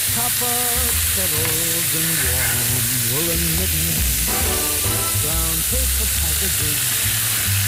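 Pork tenderloin medallions with pears and quinces sizzling steadily in butter in a frying pan, as the meat's juices are tipped in from a plate.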